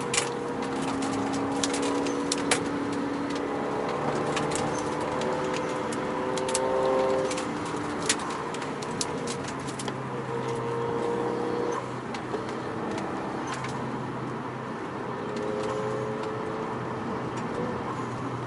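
Renault Mégane RS 225's turbocharged 2.0-litre four-cylinder, fitted with a Milltek downpipe and cat-back exhaust, running at fairly steady, low revs; the pitch creeps up slightly about seven seconds in, then eases off. Scattered sharp clicks sound over the engine.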